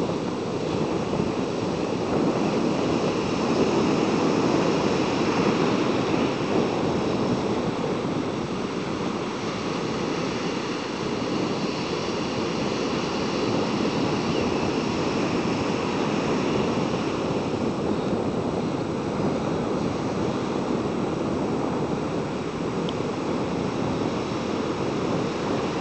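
Ocean surf breaking and washing up over a sandy beach: a steady rushing noise that swells a few seconds in and then settles.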